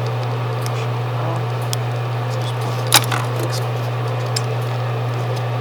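AC refrigerant recovery machine running with a steady low hum while it pulls refrigerant from the car's AC system. Light handling ticks, and one sharp click about three seconds in.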